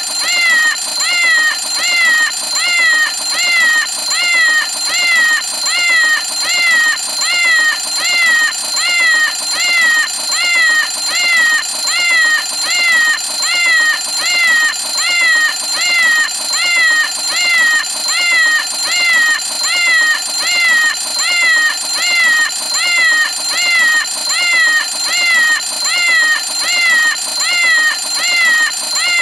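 Cartoon Meow o' Clock alarm clock going off: a meow repeating evenly about three times every two seconds over a steady high ringing tone.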